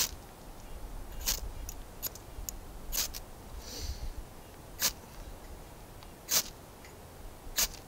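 A hand-forged striker scraped hard down a small ferrocerium rod to throw a shower of sparks. About five sharp rasps come roughly one every one and a half seconds, with a couple of fainter scrapes between them.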